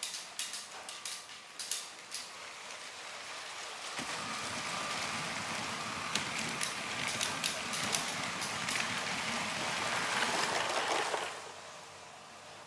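LEGO train running on plastic track, its wheels clicking over the track joints. About four seconds in the running gets louder into a steady rattle, which drops away suddenly near the end.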